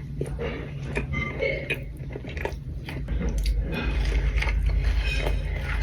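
Close-miked biting and chewing of a soft Crumbl cookie, with many small irregular clicks and crackles. A steady low hum runs underneath.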